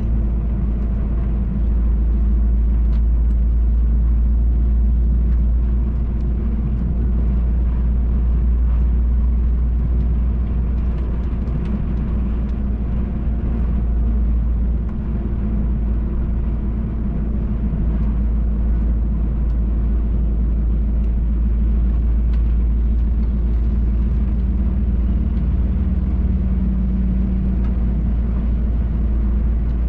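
MAN TGX truck's engine droning steadily with road rumble, heard inside the cab while driving.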